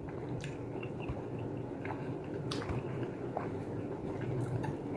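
Close-miked chewing of a mouthful of soft, juicy fruit: wet mouth sounds with scattered small clicks and squelches.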